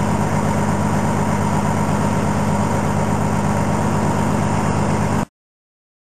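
Semi truck's diesel engine running steadily with a low drone, cutting off suddenly about five seconds in.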